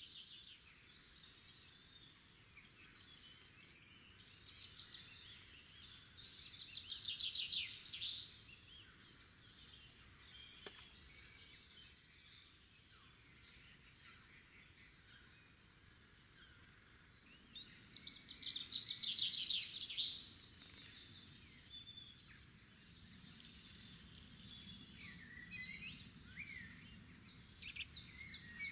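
Songbirds singing over a faint steady outdoor hiss, with scattered chirps and two louder, rapid trilled songs, one about a quarter of the way in and one about two-thirds in.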